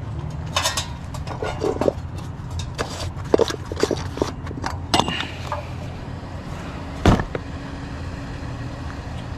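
Scrap items being handled and loaded into a vehicle: a run of short clinks, clanks and scrapes, then one heavy thump about seven seconds in, over a steady low rumble.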